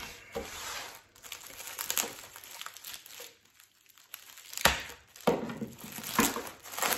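Clear plastic wrapping crinkling as it is cut and pulled open by hand around a long blade, in irregular rustling bursts that are loudest in the second half.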